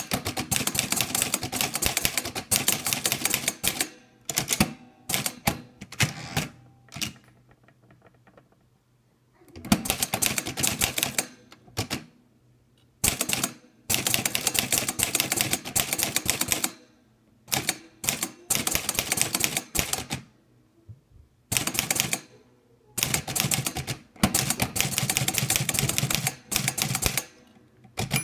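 Olivetti Lettera 32 manual portable typewriter being typed on: fast runs of typebar strikes a few seconds long, broken by short pauses and a few scattered single keystrokes.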